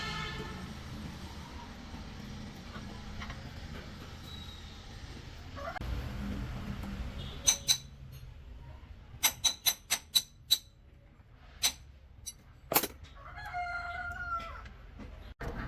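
A string of sharp knocks, about a dozen, in quick groups through the middle, then a rooster crowing briefly near the end.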